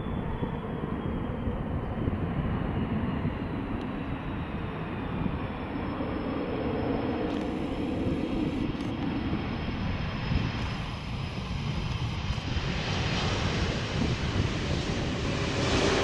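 Airbus A330 twin jet engines rumbling during the landing roll-out, with a high engine whine that slowly falls in pitch. The sound grows louder and brighter in the last few seconds as the airliner rolls past.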